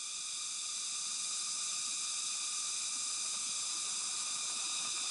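Steady high-pitched hiss of an insect chorus.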